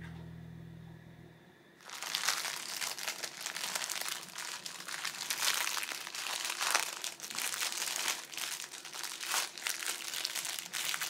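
Acoustic guitar music fading out, then, from about two seconds in, the thin clear plastic wrapping of bakery bread rolls crinkling steadily as it is handled and opened.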